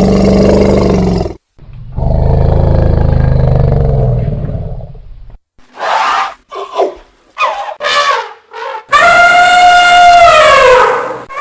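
Elephant calls: two long, low, rough roars, then a run of about five short trumpet calls, then one long loud trumpet blast that falls in pitch at its end.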